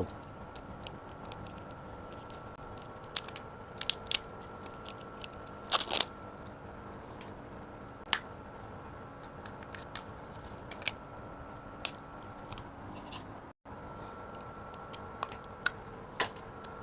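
Close-up eating sounds of someone chewing chicken noodles (mie ayam): scattered sharp clicks and mouth smacks, several close together between about three and six seconds in and a few spread later, over a faint steady hum.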